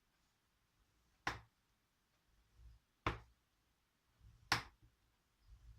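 Scoring stylus drawn along the groove of a paper scoreboard in repeated light passes over card, with faint rubbing and three sharp clicks about a second and a half apart.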